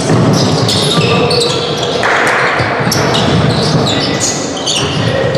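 Match sounds in a large echoing hall: a football bouncing and being struck, many short high squeaks, and voices of players and spectators. A brief hiss comes about two seconds in.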